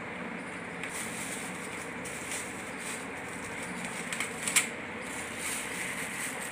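Thin plastic bag crinkling and rustling in short spells as hands open it and reach in, the loudest crackle about four and a half seconds in, over a steady background hiss.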